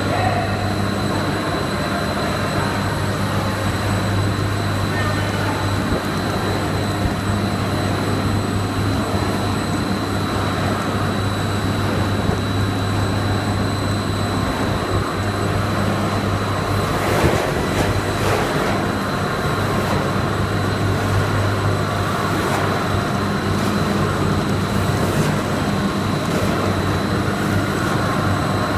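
Pellet snack extrusion line machinery for bugle chips running steadily: a low hum with a thin high whine above it. A few clattering knocks come in the second half.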